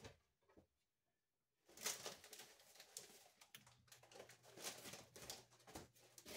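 Faint rustling and scattered clicks of someone moving about a kitchen away from the microphone, starting after about a second of dead silence; a low steady hum comes in about halfway.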